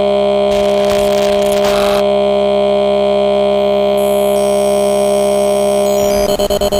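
Electronic music: a loud synthesizer chord held steady, with a fast pulsing beat coming in near the end.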